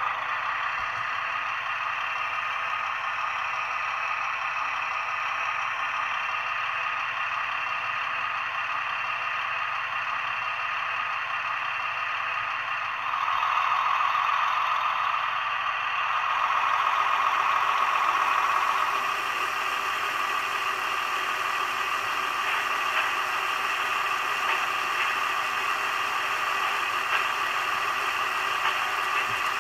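Diesel engine sound from an ESU LokSound 4 sound decoder in a Fleischmann BR 212 model locomotive, played through the model's small loudspeaker, with little low end. The engine runs steadily at idle, grows louder for a few seconds around the middle, then settles back to idle.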